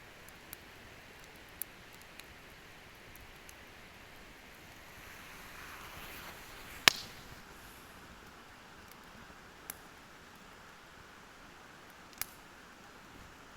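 Wood campfire burning: a soft steady hiss with sharp crackles and pops every few seconds, the loudest about seven seconds in.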